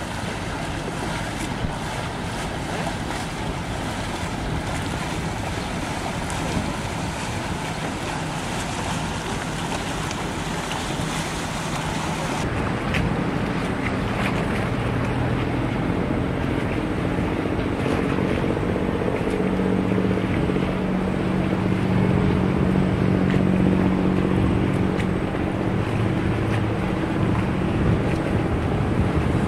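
Wind on the microphone over lapping water, with motorboats running in the distance. About twelve seconds in the sound changes to a boat engine droning steadily over splashing water, and the drone grows louder toward the end.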